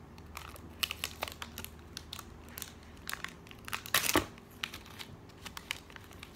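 Chocolate bar wrapper crinkling and crackling as it is handled and opened, with a louder burst of crackles about four seconds in.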